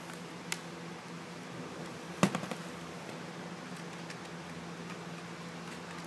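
Handling noise from a netbook being taken apart by hand: a faint click about half a second in, then one sharp click about two seconds in followed by a few lighter ticks, over a steady faint hum.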